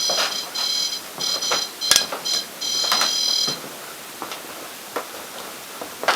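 Electronic ghost-hunting gadget beeping: an uneven run of short and longer high-pitched electronic beeps that stops about three and a half seconds in, with a knock of handling about two seconds in.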